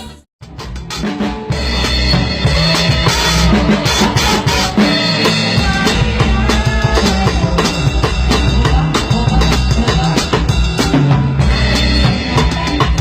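Live band music led by a drum kit, with bass drum, snare and cymbal hits under sustained instruments, starting right after a split-second gap.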